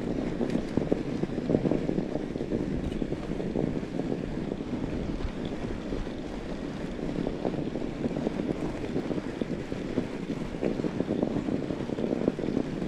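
Fat bike tyres rolling over snow, with wind buffeting the microphone: a steady rushing noise full of small crackles.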